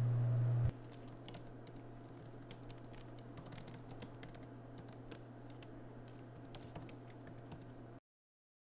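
A loud, steady low hum cuts off abruptly under a second in, leaving irregular typing on a MacBook Pro laptop keyboard, soft quick key clicks, which stops suddenly near the end.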